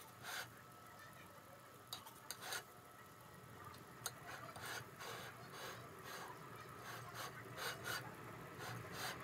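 Metal offset spatula scraping across cream frosting on the sides and top of a cake, in a series of short, faint strokes at uneven intervals.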